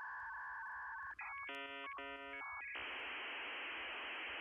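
Electronic telephone-line tones: steady paired beeps, then a short burst of rapidly changing tones about a second and a half in, then a steady hiss from about three seconds in.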